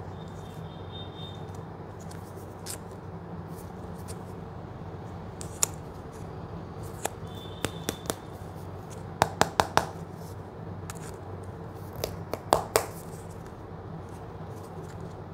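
Fingers handling a plastic ice cream cup and its clear plastic lid, giving scattered sharp clicks and taps: a few single ones, then a quick run of four and another short cluster near the end, over a steady low hum.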